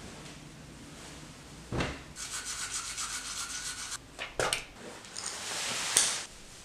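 A thump, then about two seconds of brisk, evenly repeated scrubbing strokes, a couple of sharp clicks, and a rising rustling hiss that ends abruptly in a sharp peak.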